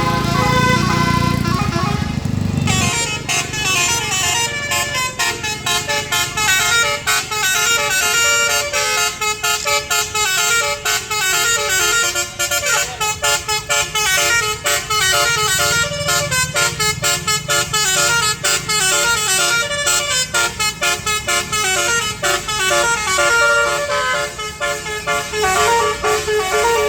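Basuri musical bus horn playing a fast tune of short, quickly changing notes. A low hum sits under the first couple of seconds, where the tune changes abruptly to another.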